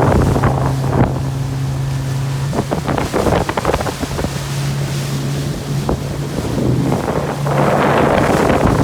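Small motorboat under way: the engine hums at a steady pitch under rushing water and wind buffeting the microphone. The wind and water noise grows louder near the end.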